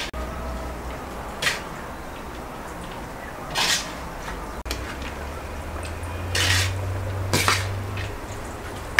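Metal spoon scooping cooked rice out of a large aluminium basin, scraping and clinking against the metal, with four louder strokes spread through.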